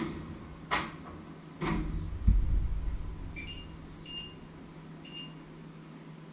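A few sharp clicks of kitchenware being handled, then a heavy low thud as the electric oven's door is shut, followed by three short electronic beeps from a kitchen appliance's controls.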